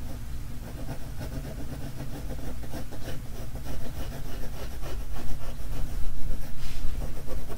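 Graphite pencil scratching on drawing paper in short strokes, louder and more frequent in the second half, over a steady low hum.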